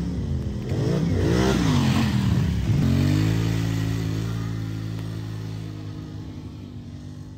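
ATV engine revving up and down a few times, then, about three seconds in, settling to a steady pitch and slowly growing fainter.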